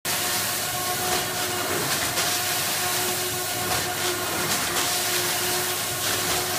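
Sigma Basic Compact loaf-bagging machine running, with a steady mechanical hum and repeated short bursts of hissing air as it opens and fills bags.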